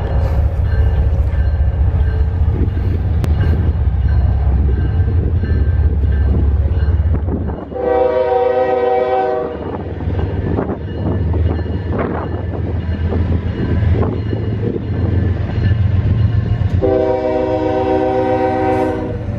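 Approaching Norfolk Southern freight train: the diesel locomotives' engines rumble throughout, and the lead locomotive's air horn sounds two long blasts, one about eight seconds in and another near the end.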